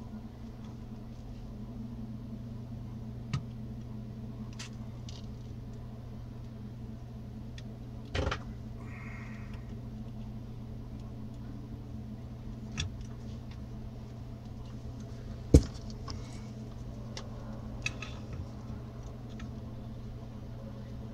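Bench work on a circuit board with a soldering iron: light clicks and knocks from the iron and board being handled, scattered over a steady low hum, the loudest a single sharp knock about two-thirds of the way through.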